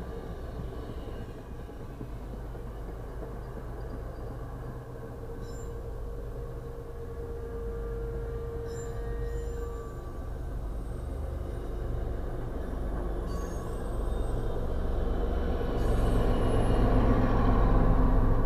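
MBTA diesel push-pull commuter train's bilevel coaches rolling along the rails with a steady low rumble, growing louder near the end as the diesel locomotive at the rear draws near.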